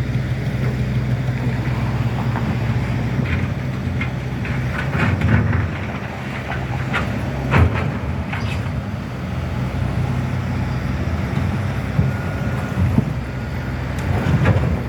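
Heavy construction machinery engine running steadily, with scattered metallic clanks and knocks, the loudest about seven and a half seconds in.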